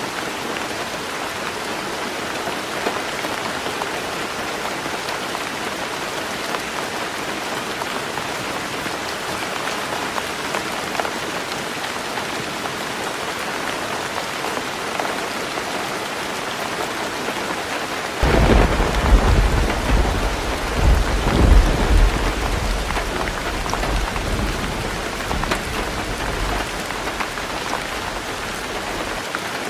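Heavy rain falling steadily on a roof. About two-thirds of the way in, a loud thunderclap breaks in and rumbles for several seconds before dying away.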